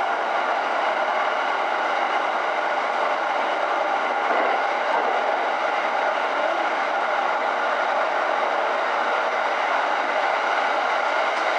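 E231-series electric train running at steady speed, heard from inside the front car: an even rolling rumble and hiss with a few faint steady tones.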